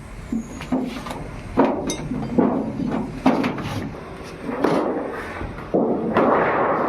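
Sheet steel from old oil drums being worked by hand: a series of irregular sharp knocks, each followed by a short rasping clatter of metal.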